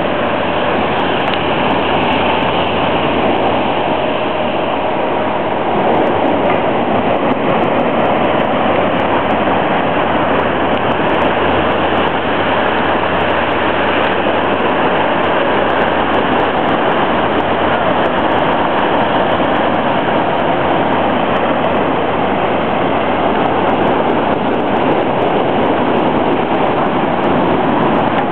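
Heavy storm surf breaking against a seafront sea wall: a loud, continuous roar of crashing waves and rushing water.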